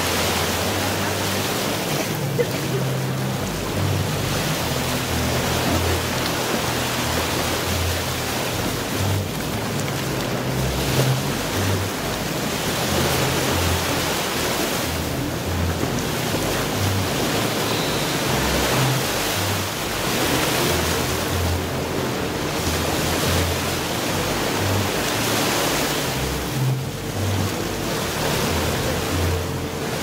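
Sea surf washing onto a beach, a steady rushing noise that swells and eases every few seconds. Music with a low bass line plays underneath.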